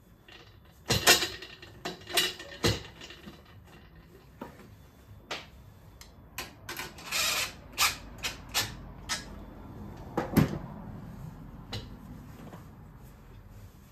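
Hand tools and metal fittings clicking and knocking irregularly while work is done on the turbocharger plumbing of a 2JZ engine, with a short scrape in the middle and the sharpest knock near the end.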